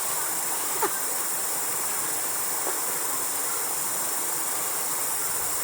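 Waterfall water rushing steadily over rocks, a continuous hiss of falling and flowing water.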